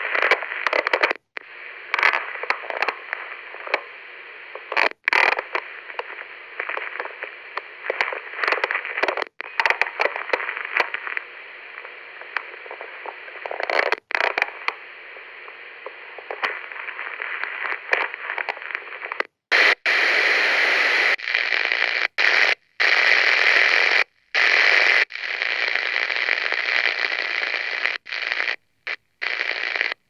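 Walkie-talkie static: a string of short takes of crackling two-way radio hiss with a thin, telephone-like sound, broken by brief cuts. About two-thirds of the way through, the static turns louder and harsher, coming in bursts that switch on and off abruptly several times.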